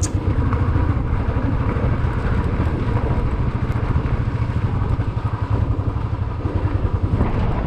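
Motorcycle engine running as the bike is ridden: a steady low rumble with rapid even pulsing.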